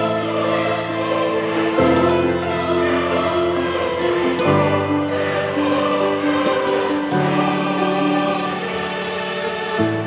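Background music of slow, sustained chords that change about every two to three seconds.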